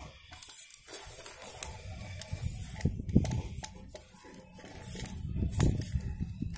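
Hands working an opened plastic tape-measure case while the tape is fed back onto its spool: scattered light clicks and scraping of the blade against the plastic, with dull knocks about three seconds in and again about five and a half seconds in.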